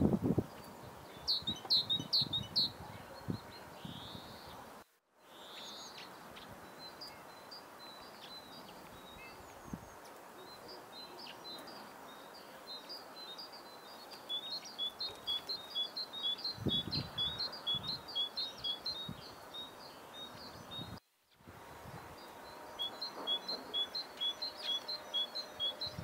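Tits singing and calling: quick series of short, high two-note phrases repeated several times a second, densest in the second half, over a steady hiss of cold wind. The sound cuts out briefly twice.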